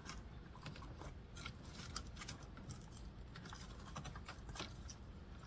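Faint, irregular light clicks and rustling of old car-stereo wiring, wire nuts and plastic connectors being handled by hand.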